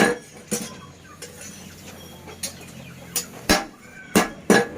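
Hammer blows on iron at a blacksmith's forge: about seven sharp metallic strikes at uneven intervals, each ringing briefly.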